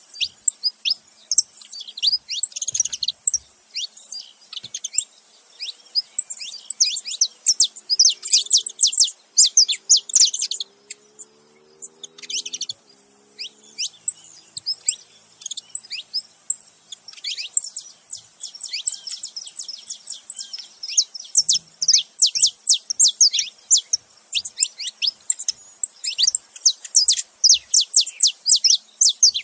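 Saffron finches, a male and a female, chirping in a rapid, dense stream of short high notes, with a brief lull around the middle.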